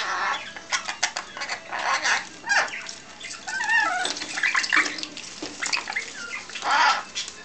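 Rainbow lorikeet chattering in a run of short, raspy calls, with a few warbling whistled notes about halfway through.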